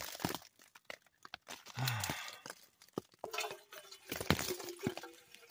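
Clinks, knocks and crinkly rustling from handling coffee-making gear, with a faint steady tone coming in about three seconds in.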